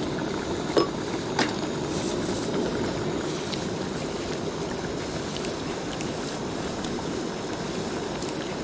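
Steady rushing noise from a camping gas stove burning under the pot and a river running close by, with a couple of light clicks a second or so in.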